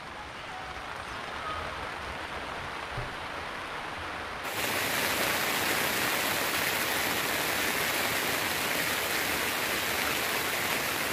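Steady rain noise that jumps suddenly louder and hissier about four and a half seconds in, becoming heavy rain drumming on a tarp tent roof overhead.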